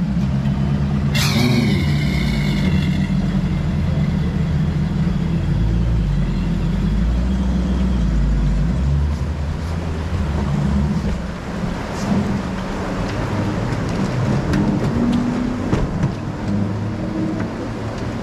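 Outboard motors idling with a steady low hum. About a second in, a brief high-pitched squeal cuts in and falls away over a couple of seconds.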